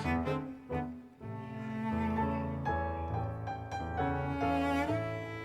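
Background music: bowed strings such as cello with piano, playing held notes that change every half second or so.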